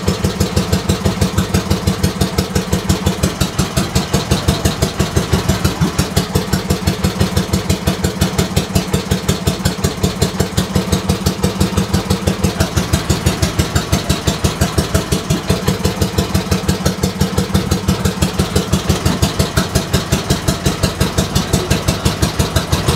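Small bangka boat's engine running steadily with an even, fast chugging pulse, heard loud and close from just above it.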